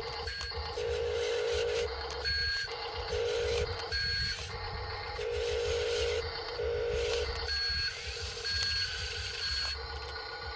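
Electric drive motors of radio-controlled construction toys whining in short stop-start bursts, with brief electronic beeps several times.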